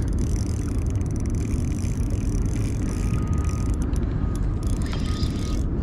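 Steady low rumble of wind buffeting the camera microphone, over the light whir of a spinning reel being cranked while a hooked fish is reeled in.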